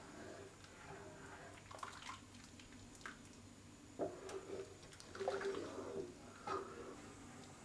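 Thick rice-and-milk kheer simmering on low heat while a wooden spoon stirs it: faint, irregular bubbly plops and squelches.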